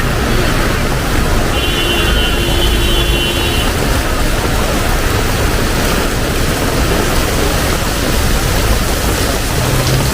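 Heavy rain pouring steadily, a dense even hiss with a low rumble underneath. A short steady tone sounds for about two seconds, starting about a second and a half in.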